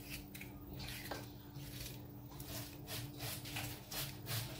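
Kitchen knife slicing a sweet pepper held in the hand, a string of soft, irregular cuts with pieces dropping into a steel bowl, over a low steady hum.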